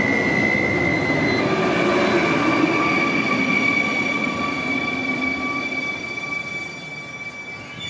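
Electric multiple unit train, a Stadler FLIRT, moving along the station track: rail rumble under a steady high-pitched whine. The whine steps up in pitch about a second and a half in and then holds. The whole sound fades over the last couple of seconds.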